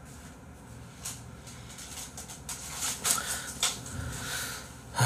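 A few light clicks and knocks of tableware and handling, as a bowl and chopsticks are set down on the table and a phone is picked up. The loudest knocks come about three seconds in.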